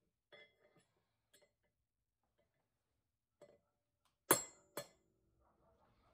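Light metal clinks and taps, then two hard metal-on-metal strikes about half a second apart, a hammer hitting steel. The first strike is the loudest and rings on briefly.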